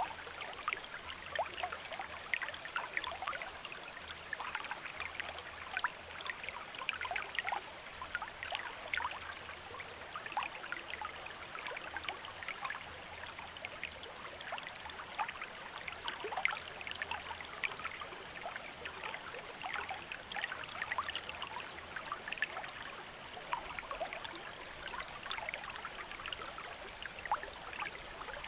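Gentle running water, a small stream trickling and babbling steadily with many small splashes and bubbles.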